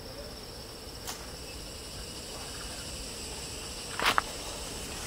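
Steady high-pitched insect chorus in rainforest, with two sharp cracks about four seconds in.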